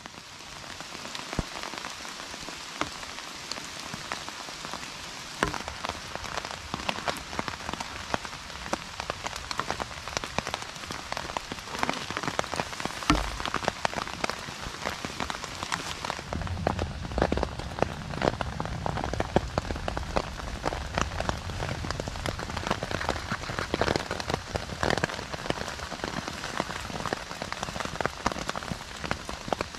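Steady rain falling on a tarp and the forest floor, many separate drops heard as fine ticks; the sound grows fuller and deeper about halfway through.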